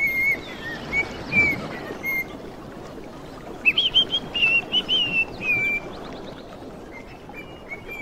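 Small parrots chirping in short whistled notes. About halfway through there is a quick run of louder, higher chirps, over a steady background noise.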